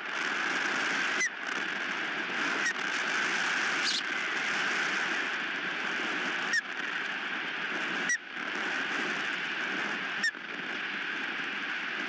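Strong wind rushing steadily over the nest-cam microphone. It is broken about every second or two by a brief drop in level, each with a short high squeak.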